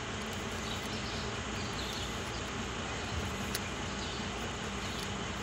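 Steady low hum of running machinery under a constant hiss, with a few faint clicks.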